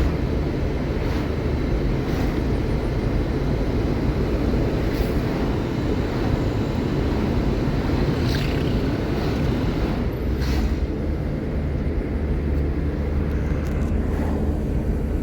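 Steady rumble of a vehicle moving along a road, engine and tyre noise, with a few faint light knocks now and then.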